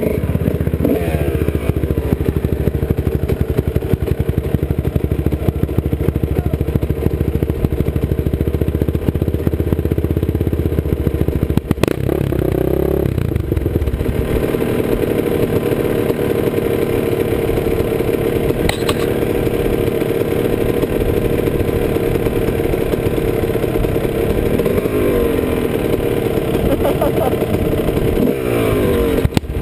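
Off-road vehicle engine heard close from a helmet-mounted camera, running continuously along a dirt trail, its pitch rising and falling as the throttle is worked, most noticeably about 13 seconds in and again near the end.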